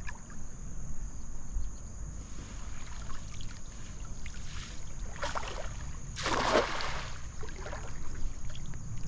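A cast net hitting the water with a splash about six seconds in, after a shorter burst of noise a second earlier. Under it runs a low rumble of wind on the microphone and a steady high insect drone.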